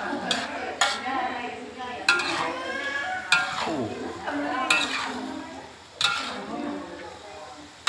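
Spatula stir-frying chunks of pork offal and vegetables in a metal wok, scraping and knocking against the pan about once every second or so, over a light sizzle of frying.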